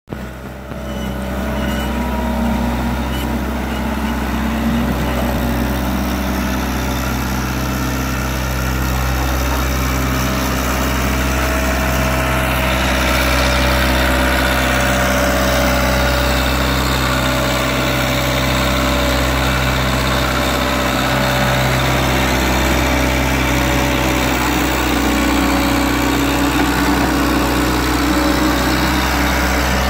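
John Deere 323D compact track loader's diesel engine running steadily as the machine pushes a large frozen chunk of snow and ice.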